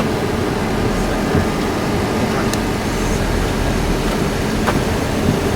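Steady rumble and hum of a Boeing 737-300's CFM56 engines idling, heard inside the cockpit, with a few light clicks.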